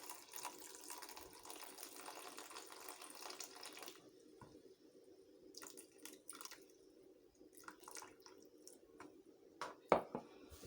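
Rinse water being poured off a bowl of salt-washed sliced onions, splashing steadily for about four seconds, then a few drips and small clicks, with a sharp knock near the end.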